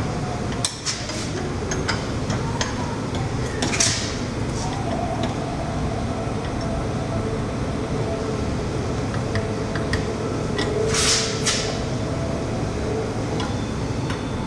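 Steel bush-press tool pieces clicking and knocking as they are fitted onto a car's rear trailing arm, with two short metal scrapes, over a steady workshop background hum.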